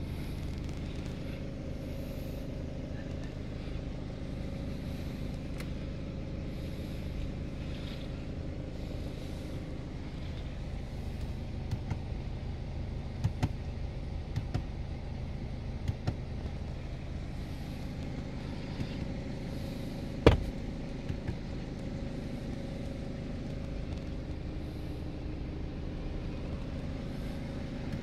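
BMW F31's engine idling steadily, heard from inside the cabin. A few light clicks in the middle, and one sharper click about twenty seconds in.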